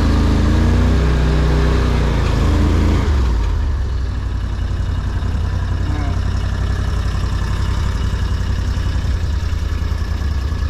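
ARGO amphibious ATV engine running under throttle, then easing off about three seconds in to a lower, steady idle.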